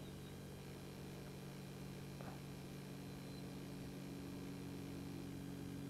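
Faint, steady low electrical hum over quiet room hiss.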